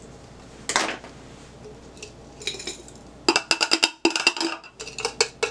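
A metal spoon clinking and tapping rapidly against a glass coffee carafe and a plastic cup, scraping out the last of the blended Oreo mix. There is a single knock about a second in, and the quick run of clinks starts a little past halfway.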